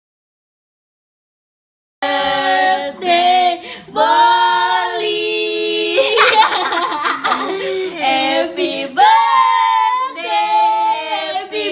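Dead silence for about two seconds, then singing voices without instruments that carry on to the end.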